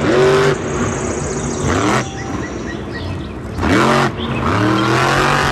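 Blue Thunder monster truck's supercharged V8 engine revving hard, its pitch sweeping up and falling back about four times.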